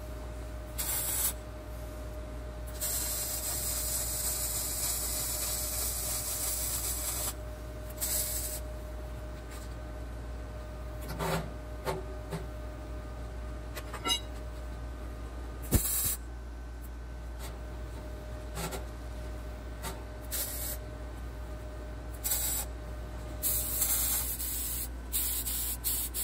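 A MIG welder's arc hissing and crackling in bursts that start and stop abruptly: a few seconds long at first, then short tack welds. Near the end comes a steadier hiss from a compressed-air paint spray gun.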